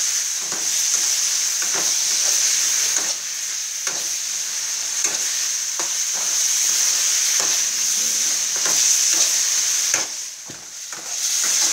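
Beef stir-frying in a steel wok over high heat: a steady loud sizzle, with a metal spatula scraping and knocking against the pan every second or so. The sizzle drops away briefly near the end, then comes back.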